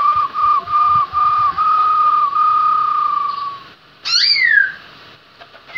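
Caged laughingthrush (khướu mun) singing: a run of clear repeated whistled notes that merge into one long held whistle, then after a short pause a louder whistle that sweeps up and falls away.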